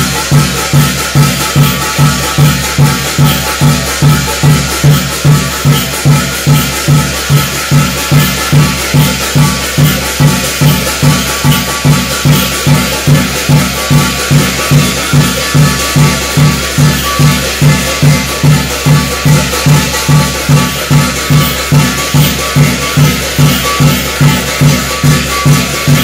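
Korean shamanic gut ritual music: a drum beats a steady, fast pulse of a little over two strokes a second, under continuous ringing and jingling metal percussion.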